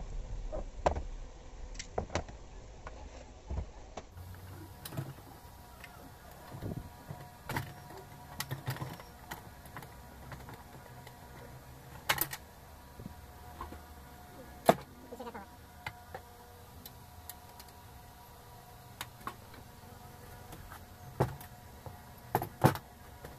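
Plastic covers and parts of a Usha Janome Allure sewing machine clicking and knocking as the machine is handled and put back together: irregular sharp clicks, with a few louder knocks around the middle and near the end.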